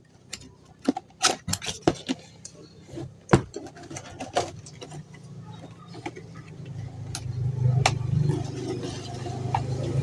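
Clicks, taps and knocks of a packaged kitchen knife set being handled and opened, scattered through the first half. A low steady hum swells from about halfway in and keeps going.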